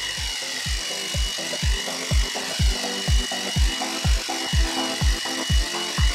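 Background electronic music with a thumping kick drum about twice a second, over the steady high whine of a battery-powered EGO telescopic hedge trimmer running.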